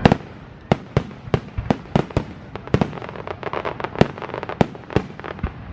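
Fireworks display: an irregular rapid series of sharp bangs, two or three a second, with denser crackling from about three seconds in.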